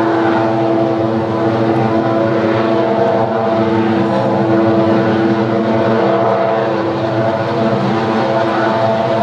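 Thermoelectric power plant giving off a steady, loud mechanical drone made of several held tones over a rushing noise. It is an unusual noise whose cause is unknown.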